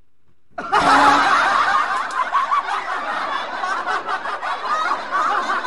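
A group of people laughing and chuckling together, cutting in suddenly about half a second in and going on steadily after that.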